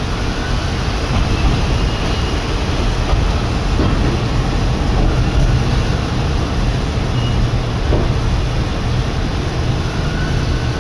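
Steady rumble inside the cabin of a Kominato Railway diesel railcar running along the line.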